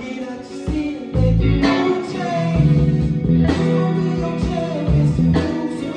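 Live band music: guitar and bass with drums, played loud.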